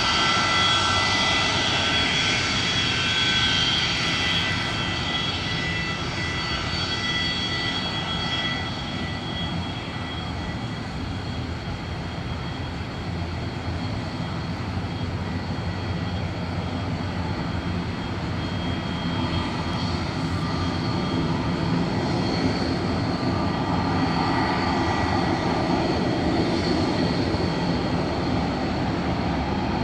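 Boeing 727-200 freighter's three Pratt & Whitney JT8D low-bypass turbofans running: a steady high whine over a rumble. The whine fades after about eight seconds, and the rumble grows louder toward the end.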